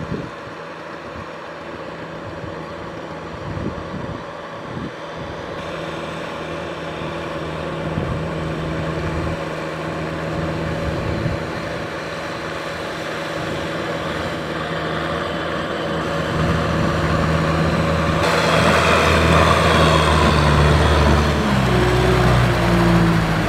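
Kubota M6040 tractor's diesel engine working under load as it pushes a front levelling blade through flooded paddy mud. It is a steady low drone that grows louder, and its engine speed shifts up and down a few times near the end.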